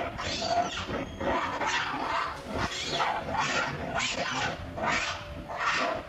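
Macaque monkeys giving repeated short, noisy calls, about one to two a second.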